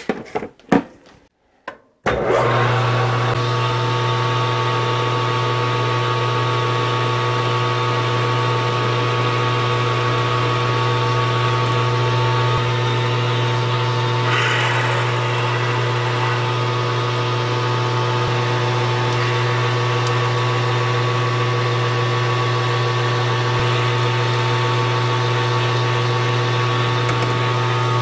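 Metal lathe switched on about two seconds in, then running steadily with a strong motor hum and a few steady higher tones while a drill in the tailstock chuck is fed into the spinning metal workpiece to bore its 3/8-inch centre hole. A short hiss of cutting is heard about halfway through.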